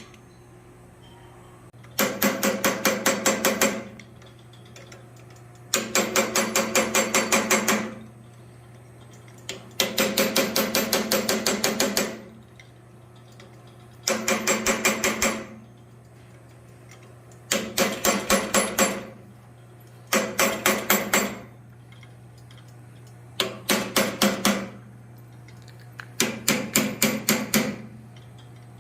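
A blacksmith's hammer striking hot or cooling steel on the anvil in about eight quick bursts of light blows, about six a second, with short pauses between them: refining detail on a small forged dragon head. The blows ring, and a steady low hum runs underneath.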